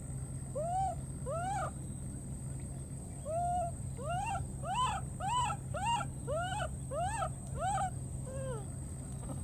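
Wet baby monkey crying out in a string of about a dozen short, high calls that each rise then fall in pitch. The calls come faster in the middle, and the last one is lower and falling. These are the distress calls of a lost infant separated from its companion.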